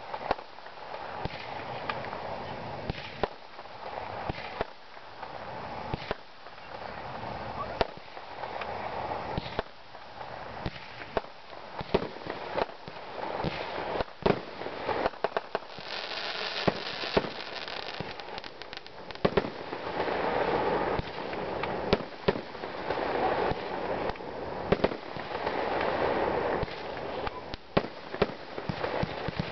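Aerial fireworks going off in quick succession: many sharp bangs and crackling pops, with a brief hiss about halfway through.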